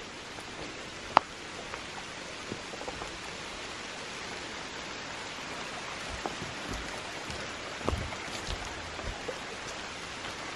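Steady rain falling, an even hiss with scattered drops ticking, one sharp tick about a second in. A few low thumps come around eight seconds in.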